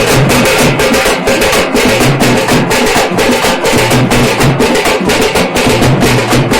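Loud, fast drumming in a steady driving rhythm, with several strokes a second.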